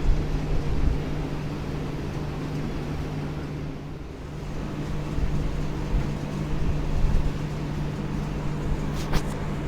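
A steady low hum with irregular low thumps and rumbles, and a sharp double click about nine seconds in.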